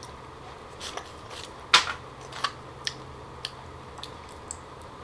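Close-up crunching of a cooked lobster's thin walking leg as it is bitten and chewed to get at the meat: a series of short sharp shell cracks and mouth clicks, the loudest a little under two seconds in.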